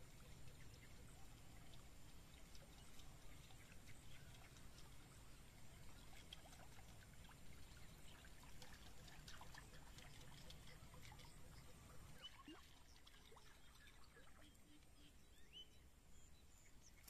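Faint water trickling and splashing, with many light scattered ticks: a topwater lure being worked across the surface of still swamp water.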